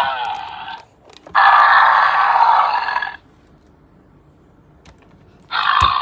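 Ankylosaurus toy's built-in sound chip playing recorded dinosaur growls through its small speaker, set off by pressing on its back: a growl fading out in the first second, a longer roar from about one and a half to three seconds in, and another starting near the end. The sound is thin, with no deep low end. A knock just before the last roar.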